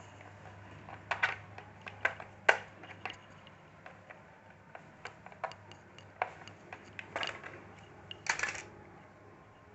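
Irregular clicks, taps and a few short scrapes of a small screwdriver and loose parts against a laptop's plastic case as it is taken apart.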